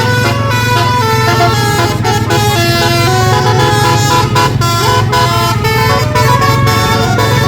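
Bus basuri telolet horn playing a freestyle melody, held notes stepping from one pitch to the next, over a steady low hum.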